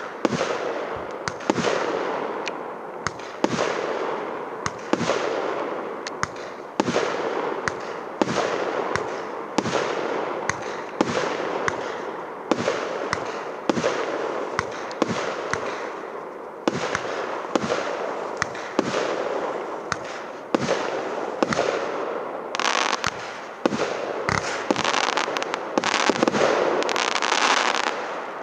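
A 49-shot, 1.25-inch firework battery (PKU124 'Linkor' cake) firing shot after shot, roughly one a second, each a sharp report with a fading tail. It grows louder and denser near the end, as in a finale.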